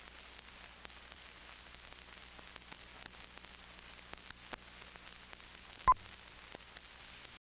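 Faint steady hiss with scattered light clicks and crackles, like an old film leader running, and one short, sharp 1 kHz beep about six seconds in: the 'two-pop' sync beep of a film-leader countdown. The hiss cuts off suddenly just before the end.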